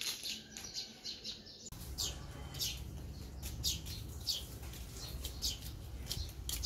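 Small birds chirping, short high calls repeated throughout, faint, over a low steady background rumble that starts about two seconds in.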